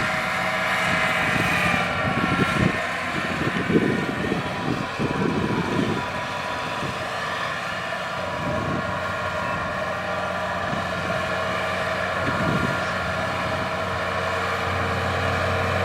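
Kubota DC-70 rice combine harvester running steadily under load, its diesel engine and threshing machinery giving a constant drone with a steady whine. Irregular low knocks and rattles come through, mostly in the first third and once again near the end.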